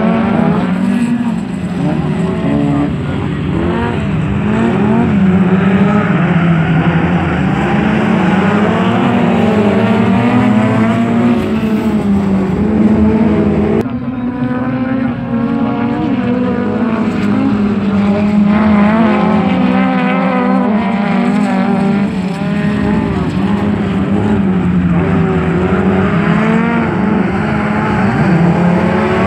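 Several folkrace cars racing together, their engines revving up and down through the gears with many engine notes overlapping, over a steady low drone. The sound drops and shifts abruptly about halfway.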